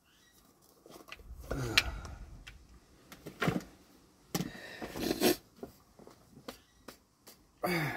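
Rustling and light clicks of a half-face respirator and safety goggles being pulled off and handled, with a short falling sigh about one and a half seconds in and further breathing.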